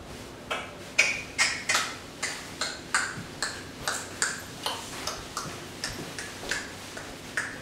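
A run of short, sharp clicks, evenly spaced at about three a second.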